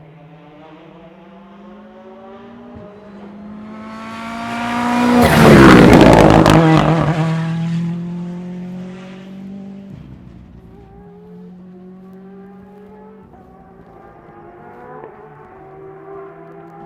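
Rally car at competition speed approaching with its engine note rising through the gears, passing close by at full power, then pulling away through further upshifts as the sound fades.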